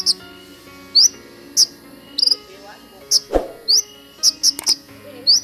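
Caged copper-throated sunbird (kolibri ninja) singing: short, sharp, high rising chirps, about two a second. One dull thump a little past halfway.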